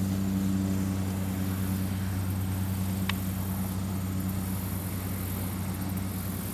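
Tractor engine running steadily and growing fainter. A brief high chirp sounds about three seconds in.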